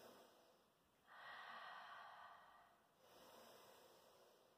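Faint, slow breathing of a woman holding a stretch: two long breaths about two seconds apart, the second softer.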